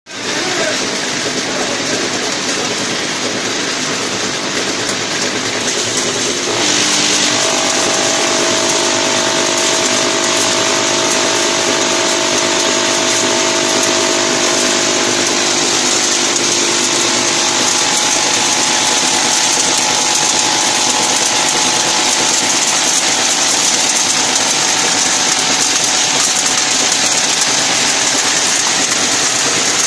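High-speed automatic toffee packing machine running: a dense, steady mechanical clatter of rapid clicks with a few faint steady tones underneath. It grows louder and brighter about six and a half seconds in.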